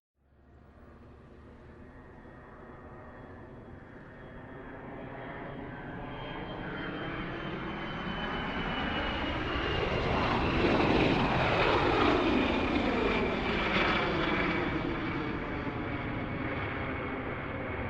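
Airplane flying past: the engine sound builds steadily, is loudest a little past halfway, then fades, with a high whine that slowly falls in pitch as it goes by.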